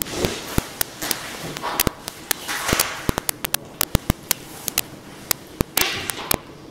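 Irregular sharp cracks and snaps, sometimes several in quick succession, over slow swells of hissing noise.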